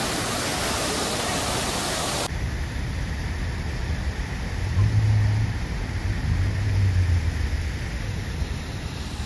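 Steady rush of splashing fountain water, which cuts off abruptly about two seconds in. A low rumble follows, swelling louder twice.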